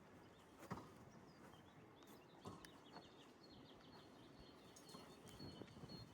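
Faint outdoor quiet with a few sharp footsteps on stone and a small bird chirping a quick run of high notes through the second half.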